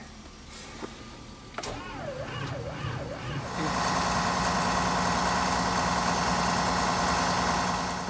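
Case IH Magnum 340 tractor's diesel engine cranking in sub-zero cold, just after its intake grid heater has cycled. It catches about three and a half seconds in and settles into a steady run.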